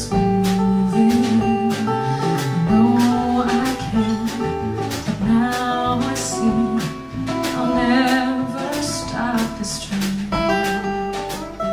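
Live band music led by acoustic guitar, with a woman singing over it, a held note wavering with vibrato about eight seconds in.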